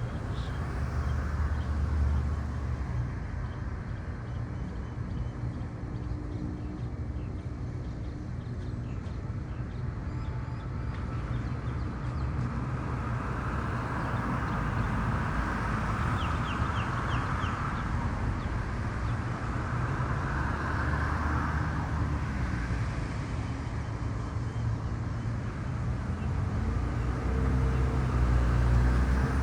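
Outdoor ambience: a steady low rumble under a haze of noise, with a few faint short ticks or chirps a little past halfway.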